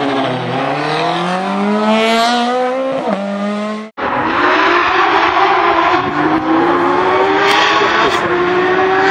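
Porsche 911 GT3 rally car's flat-six engine accelerating hard, its note climbing through the revs with a gear change about three seconds in. The sound cuts off abruptly just before four seconds, then the engine is heard again at high revs, its pitch rising slowly.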